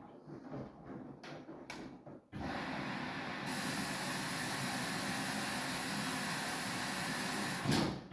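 Samsung washing machine: a few clicks, then a steady rush of water hissing in from about two seconds in, as when the machine fills, with a brief louder surge near the end.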